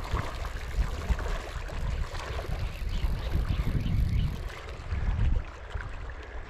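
Wind buffeting the microphone in uneven gusts, over the lapping of lake water.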